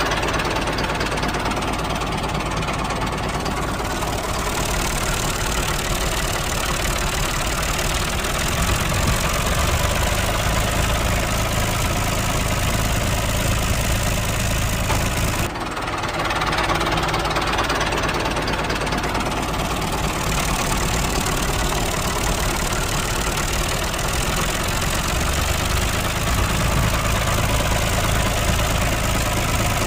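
Tractor engine running steadily, with a short dip about halfway through after which the same sound starts over.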